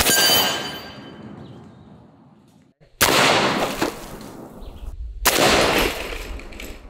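Three shots from a 72-calibre Zeus big-bore PCP air rifle, each a sharp report that dies away over a second or so. The second comes about three seconds after the first and the third about two seconds after that. The first trails off with a faint ringing tail.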